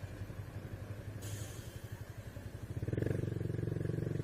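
Honda Biz 125's single-cylinder four-stroke engine running under way, getting louder and fuller about three seconds in as the throttle opens. A brief rush of hiss about a second in.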